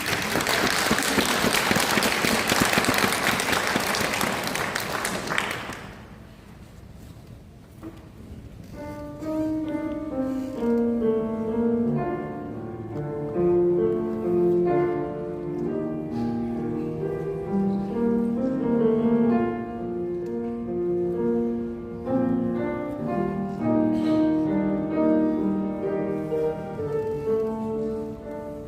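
Audience applause for about six seconds, then a short lull, and a piano begins playing about eight seconds in: the start of the accompaniment for a men's choir song.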